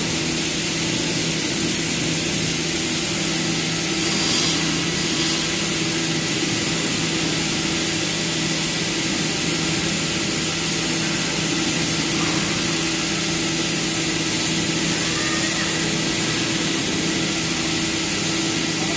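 Woodworking CNC machining center running: a steady mechanical hum with a couple of constant tones underneath and a strong even hiss on top, unchanging throughout.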